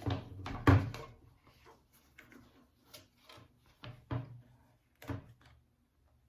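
Handling noise as things are picked up and set down: a series of knocks and taps, two loud ones in the first second, then single taps spaced out until near the end.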